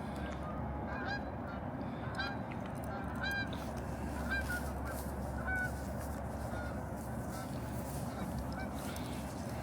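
A flock of geese honking, many short overlapping calls repeating over a steady low background rush.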